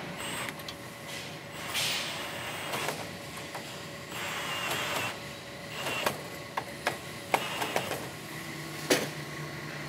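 Cordless drill-driver running in short bursts, driving the screws that hold the end caps onto a push bar. Several sharp metal clicks in the second half, the loudest near the end.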